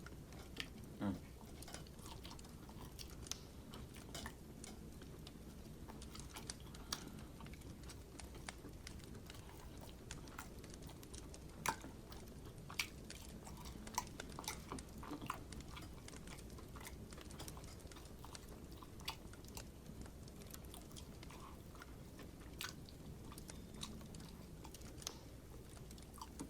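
A person chewing and biting into rotisserie chicken close to the microphone, heard as faint, irregular short clicks and smacks of the mouth.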